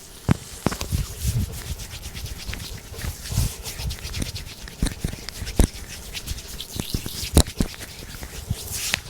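Hands rubbing and working over skin in a deep-tissue massage: a scratchy rubbing sound broken by irregular sharp knocks, the loudest about half a second, five and a half and seven and a half seconds in.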